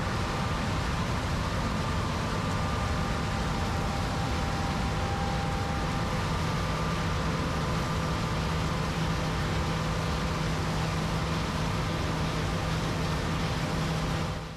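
Diesel engine of large harvest machinery running steadily in the field, an even drone with a held hum, fading out at the very end.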